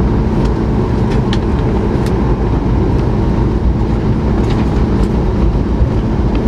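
Steady low rumble inside the cabin of a Boeing 737 MAX 8 rolling out after landing: its wheels on the pavement and its CFM LEAP-1B engines at idle, with a few light cabin rattles. The jet is slowing and turning off the runway.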